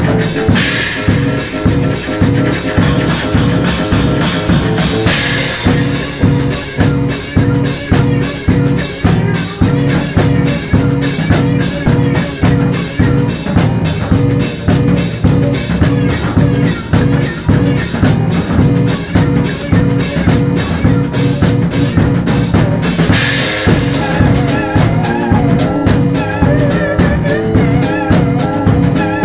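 Trip-hop style instrumental music: a drum kit with kick, snare and rimshots keeps a steady beat over a repeating low pitched line. Bright cymbal washes come in about half a second in, about five seconds in and again about 23 seconds in.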